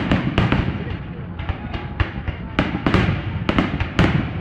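Fireworks going off in quick succession: a run of sharp bangs and crackles, several a second.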